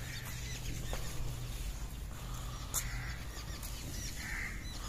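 Birds calling in the open: many short, high chirps with a few brief, hoarse calls, over a low steady hum.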